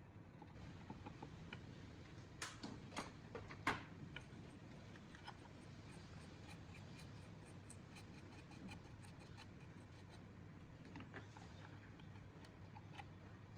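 Quiet small clicks and taps, with three louder sharp clicks a few seconds in, followed by a run of faint, quick ticks.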